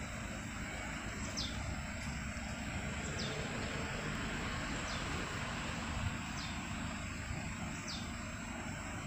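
Steady outdoor rumble and hiss, heaviest in the low end, with a short high chirp repeating about every second and a half.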